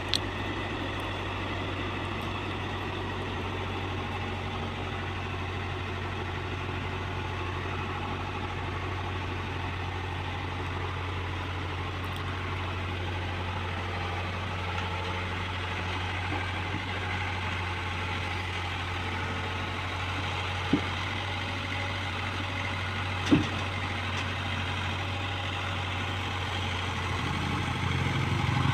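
Heavy diesel engine idling steadily, with two short sharp knocks about three quarters of the way through.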